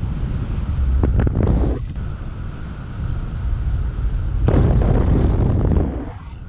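Wind buffeting the microphone of a camera carried in paraglider flight: a heavy, rumbling noise in uneven gusts, loudest about a second in and again from about four and a half to six seconds.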